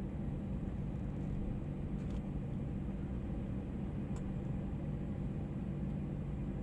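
Steady low cabin rumble and hum of an Airbus A320 on the ground after landing, with two faint clicks about two and four seconds in.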